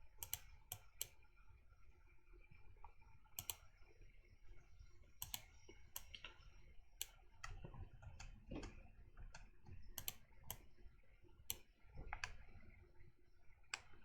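Irregular, sharp clicks of a computer mouse and keyboard, a couple of dozen over the stretch, some close together, over a faint low room hum.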